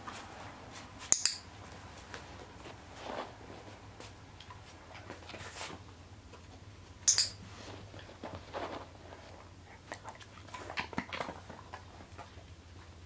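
Dog nosing through a plastic laundry basket for hidden treats: scattered rustles, small knocks and chewing. Two sharp clicks, about a second in and about seven seconds in, are the loudest sounds.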